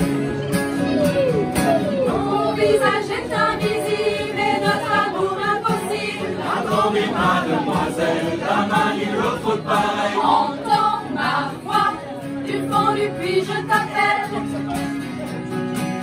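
Amateur choir of many voices singing a song together, accompanied by a strummed acoustic guitar.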